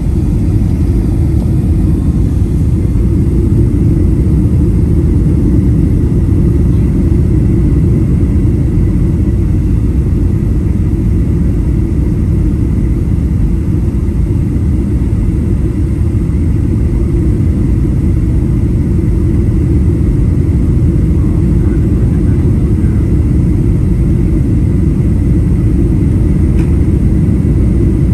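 Boeing 737-800 cabin noise on final approach, heard from inside at a window seat: a steady low roar of engines and rushing air, unchanging throughout.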